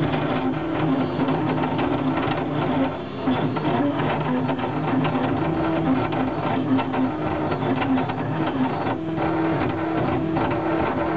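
Stepper motors of a CNC laser cutter's gantry driving the head quickly along a cutting path. The machine is noisy at these speeds and gives a string of short tones that jump up and down in pitch as the head changes speed and direction.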